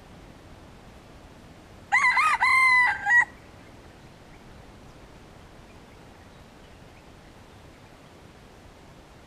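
Red junglefowl rooster crowing once, about two seconds in: a short crow of about a second and a half, broken into three linked parts, the last one cut off abruptly. A faint steady hiss lies under it.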